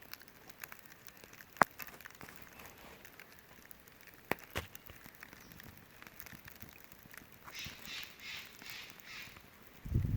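A newly lit campfire crackling faintly, with a few sharp pops. A quick run of about six short higher-pitched pulses comes near the end, then a low thump.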